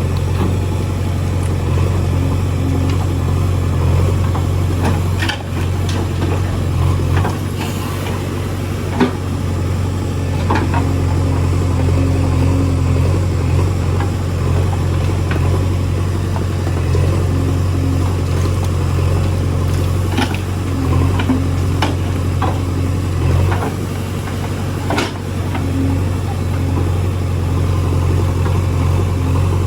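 JCB 3DX backhoe loader's diesel engine running steadily under work, its note dipping briefly now and then, with a few sharp knocks scattered through.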